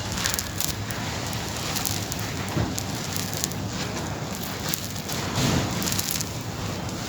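Dense crackling of brittle material being crumbled, like a bonfire, with a few louder crackles scattered through.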